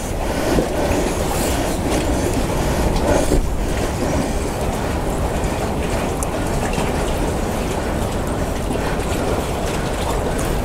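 Steady wind buffeting the microphone, a low rumbling noise without pitch, with a few faint knocks and rustles from handling the landing net and fish.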